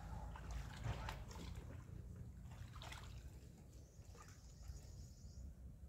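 Faint water sloshing and splashing as water is scooped out of a plastic bucket with a long-handled dipper for watering seedlings. The sounds come irregularly, strongest about a second in and again around three seconds in.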